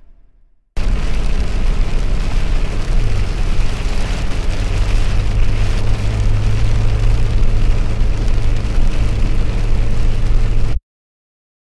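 Pickup truck driving, heard from inside the cab: a loud, even rush of engine and road noise with a steady low drone. It cuts in abruptly about a second in and cuts off abruptly near the end.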